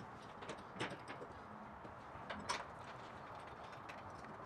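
Faint clicks and small metal knocks of a seat-back bolt and its bracket being worked by hand while it is hand-tightened. Two sharper clicks stand out, about a second in and about two and a half seconds in.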